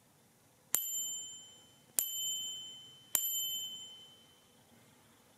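The small metal overflow bell of a Monroe model K mechanical calculator, struck three times a little over a second apart, each strike ringing out and fading. This bell warns that the machine's register has overflowed.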